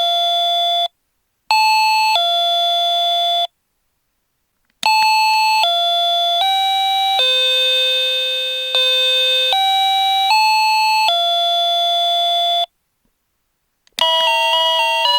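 Daiso call chime playing 8-bit electronic tones. A two-note high-then-low ding-dong ends and sounds once more. A switch click follows, then a slow melody of about eight notes. Near the end another click starts a new, faster tune.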